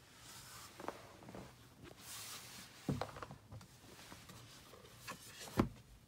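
Stiff cardboard box of a Google Home speaker being handled: faint rustling and scraping with a few light knocks, the sharpest one shortly before the end.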